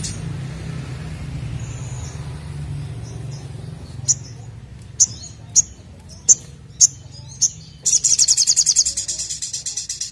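Male olive-backed sunbird singing: a string of about six sharp, high chip notes, then a fast high trill near the end.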